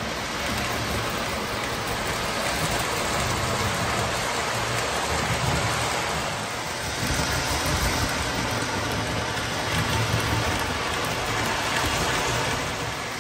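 O gauge model train running on three-rail tubular track: a steady rolling rumble of wheels on rail with motor hum, swelling and easing a little as the cars pass.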